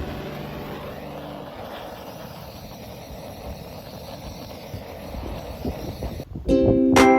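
Acoustic guitar music fades out, leaving steady outdoor background noise with faint low rumbling, like wind on the microphone or distant traffic. Near the end, bright chiming bell-like music starts.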